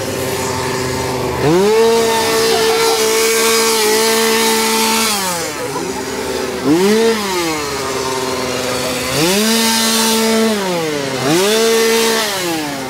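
Two-stroke chainsaw revved over and over. It goes from idle up to a steady high pitch held for several seconds and drops back, gives a couple of short blips, then makes another long rev and a quick one near the end.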